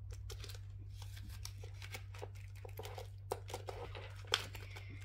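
Paper banknotes and cash envelopes rustling and crinkling as they are handled, with a few sharper clicks, over a steady low hum.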